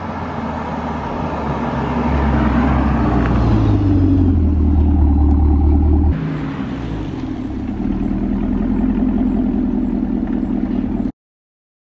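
Supercharged V8 of a 2018 Camaro ZL1 through NPP catback exhausts, first a Borla ATAK and then a Corsa Extreme: the car comes closer and its deep exhaust note builds, then after an abrupt cut about six seconds in the engine runs on with a steady drone, ending suddenly near the end.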